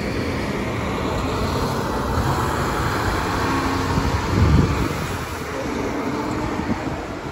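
Bus Éireann Expressway coach pulling away and driving off, its diesel engine running over steady road noise. A vehicle passes close by in the second half, with a louder low rush about four and a half seconds in.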